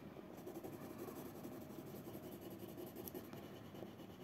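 Coloured pencil rubbing back and forth on paper while colouring in: a faint, steady scratching.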